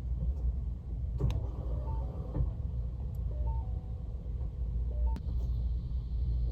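Ford car engine idling steadily, running with its fuel pump powered through jumper wires that bypass the fuel pump driver module. Two sharp clicks are heard, about a second in and near the end.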